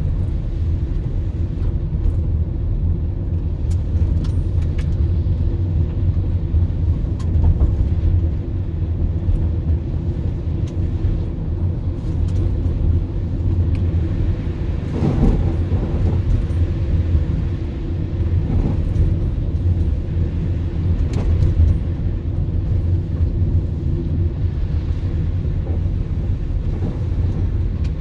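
Car driving on a wet road, heard from inside the cabin: a steady low rumble of engine and tyres on wet pavement, with scattered faint clicks and a louder swell of noise about halfway through.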